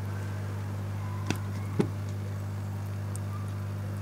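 A steady low hum with two short sharp clicks about half a second apart, the second one louder.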